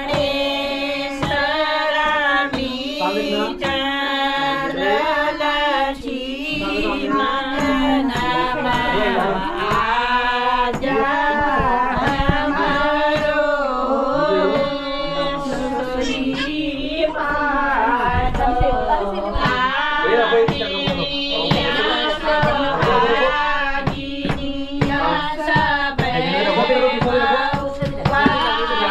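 Women's voices singing traditional Kumaoni wedding songs (gidaris) together, the melody rising and falling without a break, with low knocks beneath.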